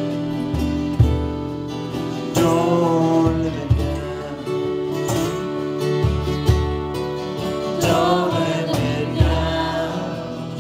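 Live kirtan devotional chant: two acoustic guitars strummed in a steady rhythm with a sung melody over them, accented about every second and a half.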